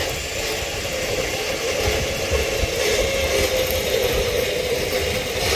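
An engine running steadily, a constant hum over a low rumble.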